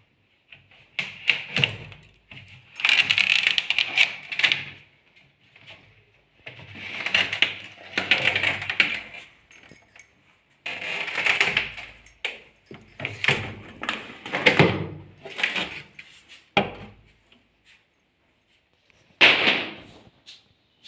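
Removable fridge parts being handled and pulled out: repeated knocking, clattering and sliding, in bursts a second or two long.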